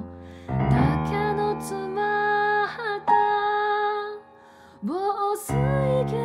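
Woman singing a slow, gentle song over piano accompaniment, in held notes with a pause for breath about four seconds in.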